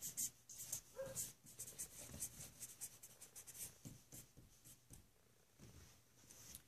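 Pen scratching on a large sheet of paper, a quick run of faint strokes as words are written out, thinning out in the last couple of seconds.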